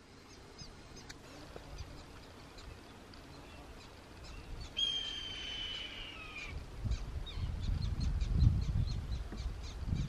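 A hawk's single long screech, falling slightly in pitch, about five seconds in, over short high chirps from small birds. From about seven seconds in, a low rumble grows and becomes the loudest sound.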